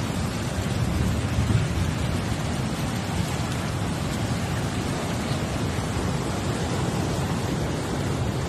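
Storm-driven surf churning over a flooded shore, a steady deep rushing of rough sea water.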